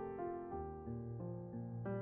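Background piano music: a slow melody with a new note every half second or so.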